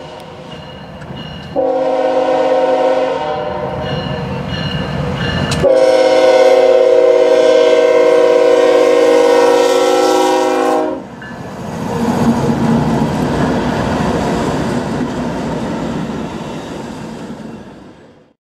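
Freight train led by Norfolk Southern diesel locomotives sounding its horn, a short blast and then a long one, as it approaches and passes. After the horn, the rumble and wheel clatter of the passing locomotives and intermodal cars carry on until the sound fades out near the end.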